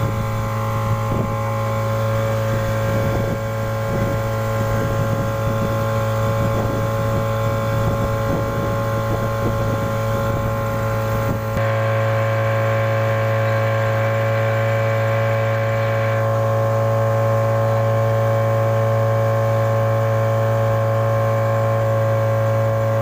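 Yamaha 40 hp outboard motor pushing the boat along at a steady speed, a constant droning hum. A rough low rumble under it drops away about halfway through.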